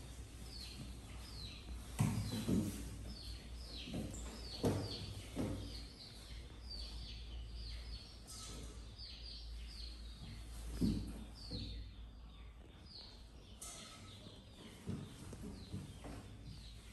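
Small birds chirping steadily, a run of short, high, falling chirps a few times a second. Several soft thumps come from young macaques scuffling on a wooden desk.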